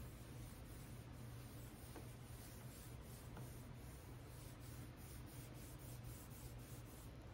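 Foam applicator pad rubbing paste wax over a refinished wood cabinet top in faint, soft, repeated strokes, over a steady low hum.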